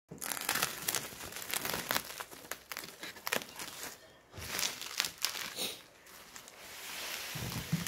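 Plastic bubble wrap crinkling and crackling as a utility knife slits it and hands pull it open, with a short lull about four seconds in.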